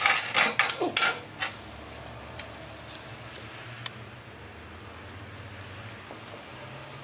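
Sharp metallic clicks and taps from hand tools and bolts being handled while landing gear is mounted on a motorcycle. The clicks come thick for the first second and a half, then only a few at a time, over a faint steady low hum.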